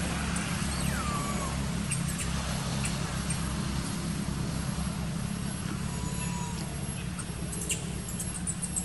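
A steady low motor-like hum in the background, with a few faint short high calls and a scatter of light clicks near the end.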